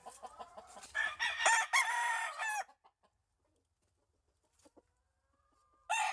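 Gamefowl rooster crowing: one crow of under two seconds begins about a second in, and after a silent gap another crow starts near the end.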